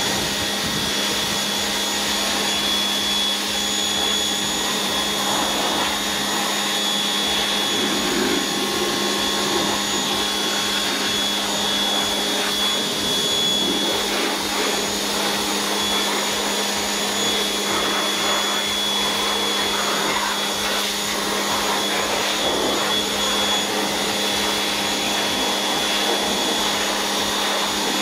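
Low-pressure electric power washer running steadily, its pump humming while the water jet hisses over an engine bay.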